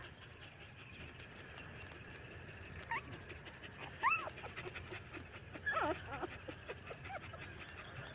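Month-old nursing puppies whimpering and squeaking: short, high squeals that rise and fall in pitch, a faint one about three seconds in, a louder one a second later, then a quick cluster of squeaks around six seconds.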